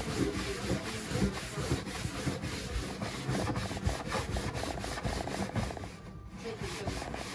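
A hand-held pad rubbed briskly back and forth over a stained wooden worktop, about three scrubbing strokes a second. The strokes pause briefly about six seconds in.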